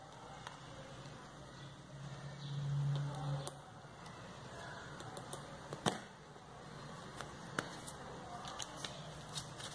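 Wooden stick clicking and tapping against a small dish as henna paste is stirred, in scattered sharp taps with the loudest about six seconds in. A brief low hum around three seconds in.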